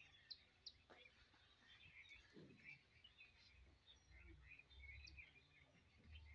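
Faint small birds chirping here and there over a quiet background hum.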